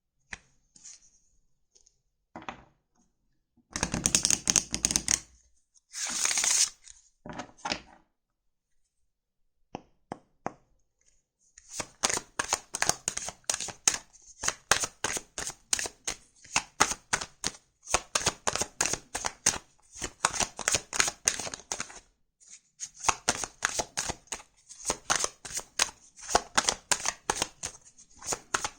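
Tarot cards being handled: a few light taps and two short rustles, then a long run of rapid, crisp card-on-card clicks as the deck is shuffled, with a brief pause about three quarters of the way through.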